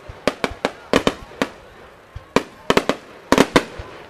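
Aerial fireworks shells bursting in a rapid, irregular string of sharp bangs, some echoing, with a short lull of about a second in the middle.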